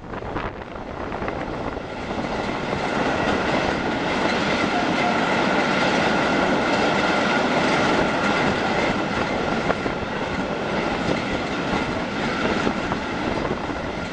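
Historic train's carriages running through a railway tunnel, heard from an open carriage window: a dense, steady din of wheels on rails that grows louder over the first few seconds as the train enters the tunnel, with a thin steady whine above it.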